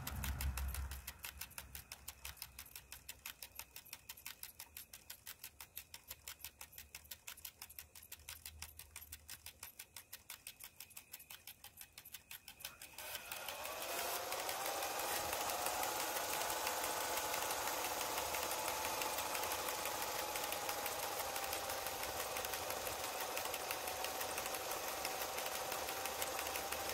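Universal motor driving a railway speedometer's tachogenerator: at low speed it gives a quiet, fast, even ticking, then about 13 seconds in it speeds up into a rising whine that levels off as a steady, louder whine. This is the rig being run up towards the instrument's top speed of about 140 km/h.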